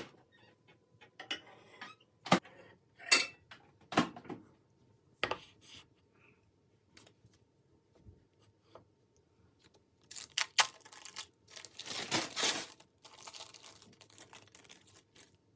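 Kitchen dishes and cutlery handled: scattered sharp clinks and knocks, then a longer stretch of scraping and rustling near the end.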